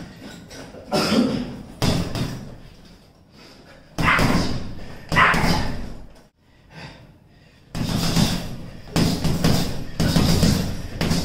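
Gloved punches landing on a hanging heavy punch bag: sharp, solid hits, some single and some in quick bunches of two or three.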